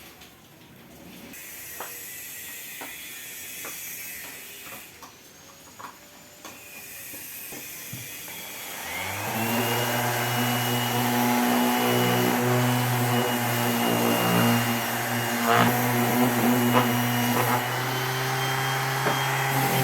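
An electric power-tool motor starts about nine seconds in, spinning up with a short rising whine, then runs steadily. Before it there are scattered light clicks and knocks.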